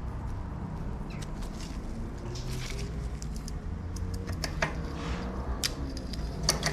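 Bicycle repair work: small metallic clicks and rattles of bike parts and hand tools being handled, over a steady low hum.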